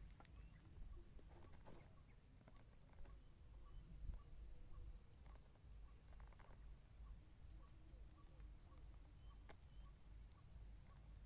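Faint, steady, high-pitched insect chorus over a low rumble of outdoor background noise.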